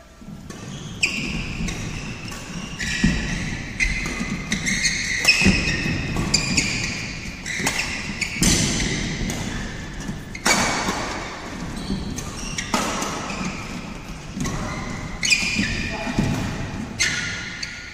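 Badminton play on an indoor court: sharp shoe squeaks on the court floor mixed with thuds of footwork and shuttle hits, coming every second or so in a hall with some echo.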